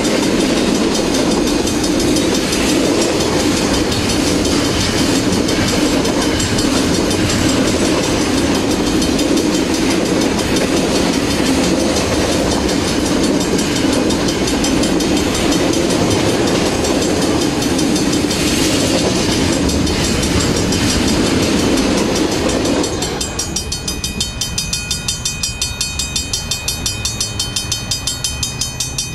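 Container wagons of a freight train rolling past on the rails, a steady noise of wheels on track. About three-quarters of the way through the last wagon clears and the level crossing's warning bell is left ringing in a fast, even rhythm.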